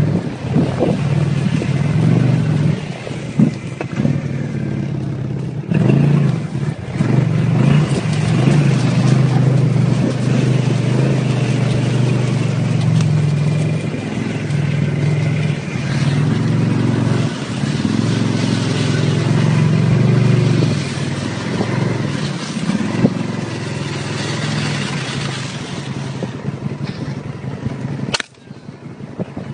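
Snowmobile engine running under load, its pitch rising and falling with the throttle. About 28 seconds in the engine sound drops sharply and goes much quieter.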